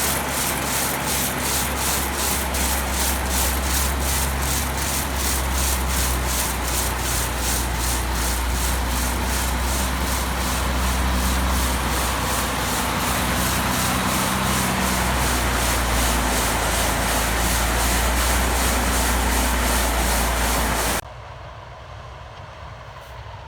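Westfield 1036 grain auger running: a steady low drone with a fast, regular scraping beat over it. It cuts off abruptly near the end, leaving a much quieter background.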